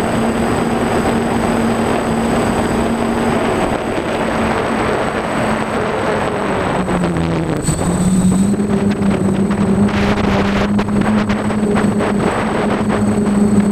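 DJI F550 hexacopter's six electric motors and propellers humming steadily, heard from the onboard camera. The hum dips in pitch about seven seconds in, then steadies a little lower, while wind gusts on the microphone in the second half.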